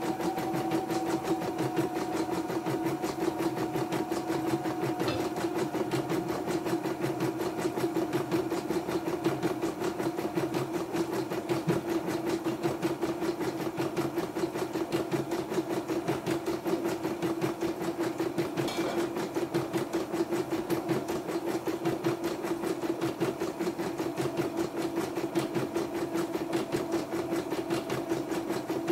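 A YOKO portable computerized embroidery machine running and stitching a design: a steady, fast run of needle strokes over a constant motor hum.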